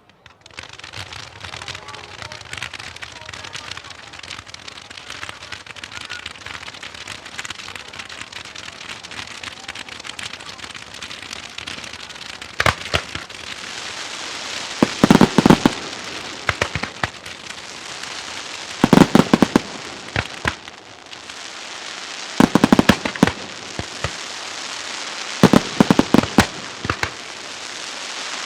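Aerial fireworks: a steady crackling of glittering stars, then from about halfway through, quick clusters of sharp bangs every few seconds.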